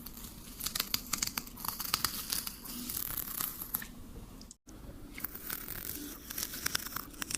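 Mukbang-style eating sounds of a cat chewing a tiny cheeseburger slider: a dense run of sharp crackles and crinkles, broken by a moment of silence about four and a half seconds in.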